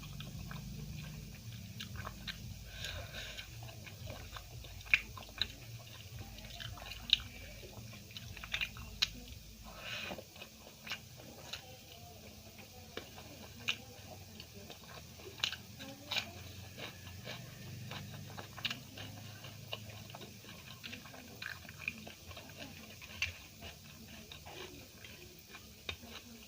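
Close-miked eating: steady chewing with frequent irregular sharp clicks and crunches from the mouth.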